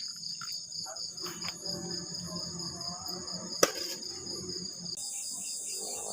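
Crickets chirping in a steady, fast-pulsing chorus. A single sharp click comes about three and a half seconds in. Near the end a higher hiss and a second pulsing insect call join in.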